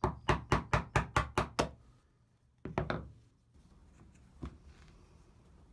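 A chisel chopping out dovetail waste in oak: a quick run of about eight knocks, then a couple more about halfway through and a faint one after.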